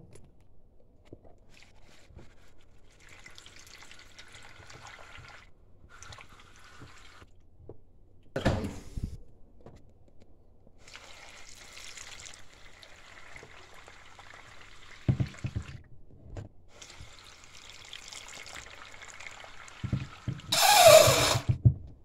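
Small hand pump sucking standing water out of a dishwasher sump through a clear tube: gurgling water in several stretches of a second or more, with a few knocks as the pump is worked and a short loud rush near the end. The water is standing in the sump because the drain is blocked (error E25).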